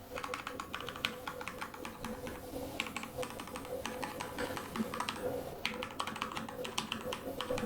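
Continuous typing on a Keychron K2 Version 2 mechanical keyboard with Gateron Brown tactile switches: a fast, irregular run of keystroke clicks, muffled rather than tinny and not very noisy.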